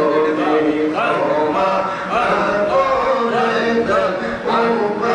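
A man's voice chanting Islamic devotional zikr in a melodic, sung line, with long held notes and gliding phrases broken by short pauses.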